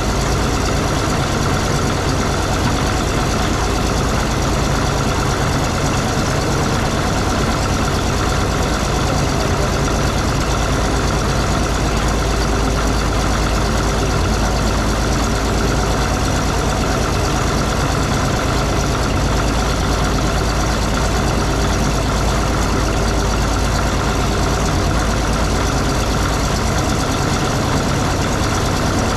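Cat D6 bulldozer's diesel engine idling steadily, an even low running tone that does not change.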